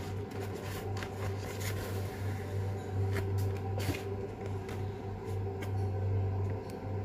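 Light rustling and a few soft taps as hands handle thin spring-roll wrappers, over a steady low hum.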